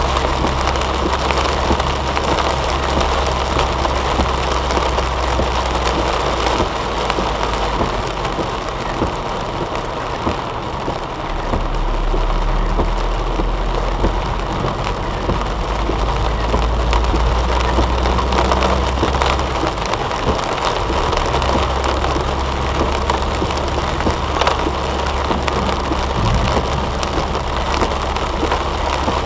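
Rain falling on a car's windshield and roof while driving, heard from inside the cabin, over a steady low hum of the engine and tyres on the wet road.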